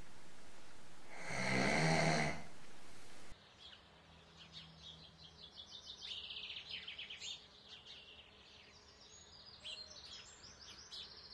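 A man snoring: one long snore about a second in. The sound then cuts off suddenly and is replaced by faint birdsong, many quick high chirps and trills.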